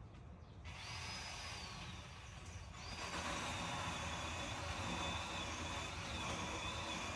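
Ryobi 18V ONE+ cordless electric chainsaw running up with a high whine under a second in, easing off, then running again from about three seconds in. The chain cuts through a fallen branch with a steady whine and rasp, the pitch dropping as it bites.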